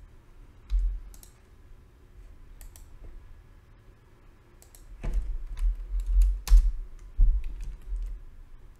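Computer keyboard typing and mouse clicking: scattered sharp clicks, busiest and loudest between about five and seven and a half seconds in, with dull low thumps among them.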